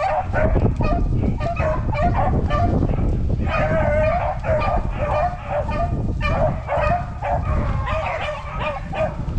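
Pack of rabbit hounds baying and yelping together as they run a rabbit's trail, many voices overlapping without a break, over a steady low rumble.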